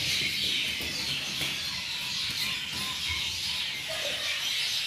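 A dense chorus of many birds chirping at once, a continuous overlapping twittering with no single call standing out.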